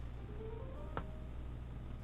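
A single faint click about a second in, a keycap being pressed onto a switch stem, over a steady low electrical hum and a few faint tones.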